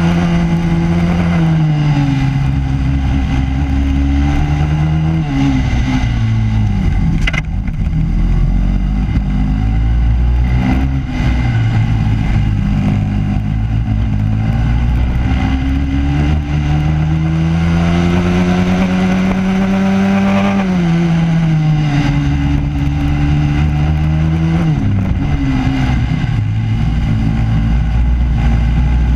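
Racing kart engine heard from the onboard camera, revving up along the straights and dropping in pitch as it slows for corners. The longest climb peaks about twenty seconds in, then the revs fall away twice.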